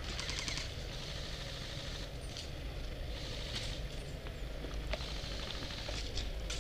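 Wind rumbling on a helmet-mounted camera's microphone, with short rattling bursts of airsoft gunfire. Near the end come crunching footsteps on gravel.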